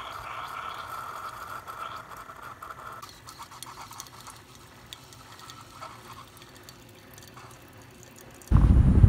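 Single-serve coffee brewer dispensing coffee into a ceramic mug. For about the first three seconds the machine runs with a steady tone over the pouring stream; after that a quieter trickle continues. Just before the end it cuts abruptly to much louder road noise from a moving vehicle.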